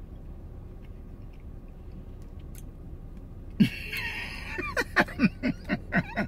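A woman chewing quietly, then, about three and a half seconds in, breaking into loud laughter: a high squeal followed by quick repeated laughs, about four to five a second.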